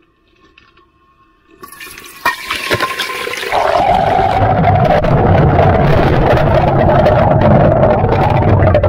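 Water poured from a bucket into a large kettle in a heavy, steady stream, starting about a second and a half in and growing louder about two seconds later.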